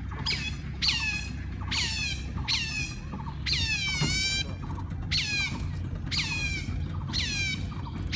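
Smooth-coated otters calling: a run of high squeals that each slide down in pitch, about one a second, with one longer, drawn-out call near the middle.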